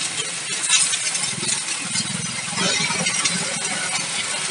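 Pressure washer running, its pump humming steadily under the hiss of the water jet spraying a muddy tyre and wheel arch.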